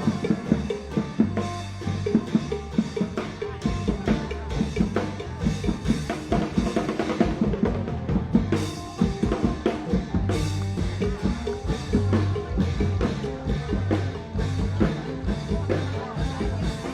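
Music with a steady drum kit beat and a pulsing bass line.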